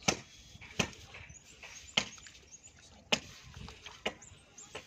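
Sharp knocks or slaps, about one a second, from hands packing wet soil and mud around the base of a newly sunk plastic bore pipe. Birds chirp faintly between the knocks.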